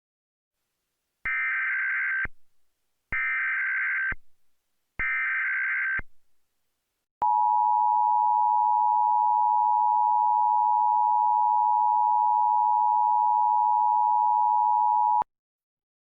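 Emergency Alert System activation: three SAME data header bursts, each about a second long with short gaps, followed by the steady EAS two-tone attention signal for about eight seconds, which cuts off suddenly. The header announces a tornado warning.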